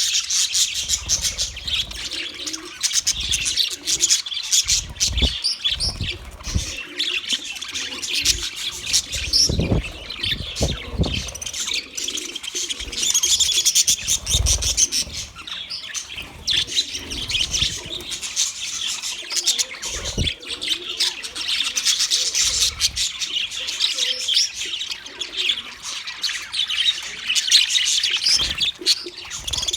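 A flock of budgerigars chattering and chirping continuously in a busy warble, with a few short low thumps here and there.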